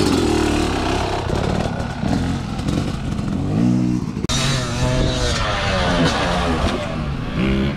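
Dirt bike engine running close by, its pitch rising as it is revved. After a sudden cut about four seconds in, a dirt bike revving up and down out on the track.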